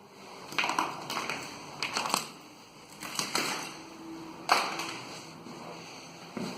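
Footsteps crunching over debris on the floor of a derelict building: a series of uneven crunches, the loudest about four and a half seconds in.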